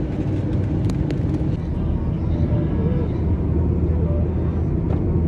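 Steady low rumble of a car's engine and tyres on the road, heard from inside the moving car, with a couple of sharp clicks about a second in.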